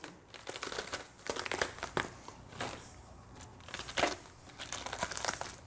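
Leaves of an iceberg lettuce being peeled off the head by hand, crisp leaves crinkling and snapping in irregular crackles, the loudest about four seconds in.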